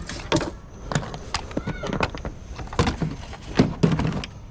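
Irregular clicks and knocks of plastic parts being handled in an under-hood fuse and relay box (TIPM), with a brief squeak near two seconds in and the loudest knocks about three and a half seconds in.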